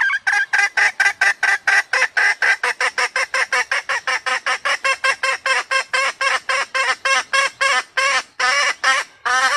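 Red junglefowl hen cackling: a fast, steady run of clucks, about four or five a second, with two longer, drawn-out notes near the end before it stops.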